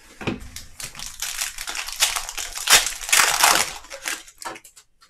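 Foil wrapper of a Panini Optic basketball hobby pack being torn open and crinkled by hand: a dense crackle that is loudest about three seconds in and stops near the end.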